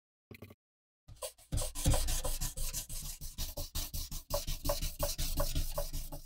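Sandpaper rubbed by hand along a steel knife blade in quick back-and-forth strokes, starting about a second in. The blade is being sanded smooth to clear rust.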